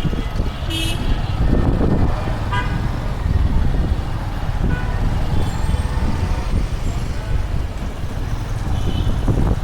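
Busy city road traffic with a steady low rumble and a few short vehicle-horn toots: one about a second in, one around two and a half seconds in, and one near the end.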